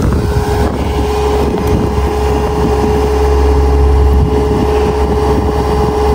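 Cat 297C compact track loader's diesel engine running steadily, with a steady whine over the low rumble.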